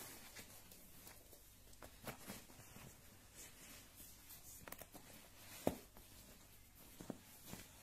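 Faint rustling and scattered soft taps of fabric as a folded baby blanket is stuffed into the nylon front pocket of a shopping trolley bag, with one sharper tap a little past halfway.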